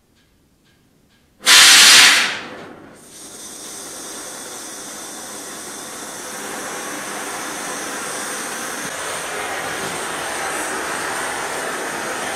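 Oxy-fuel cutting torch: a short, loud rush of gas about one and a half seconds in, then the flame hissing steadily and growing a little louder. The flame is heating a double-bit axe head to draw out its temper.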